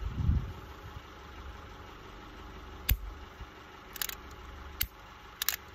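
Revolver dry-firing: a few sharp metallic clicks of the hammer falling, about a second apart, as the trigger is pulled on chambers holding spent cases, after a soft thump at the start. A steady low hum runs underneath.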